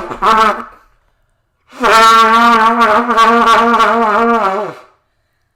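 Trumpet blown loudly and unmusically: one blast tails off, and after a short pause comes a long wavering held note of about three seconds that sags in pitch as it dies away.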